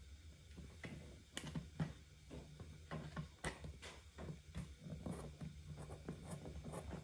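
Scissors snipping into a dried papier-mâché shell: a series of faint, irregular snips as the blades cut an opening in the stiff paper.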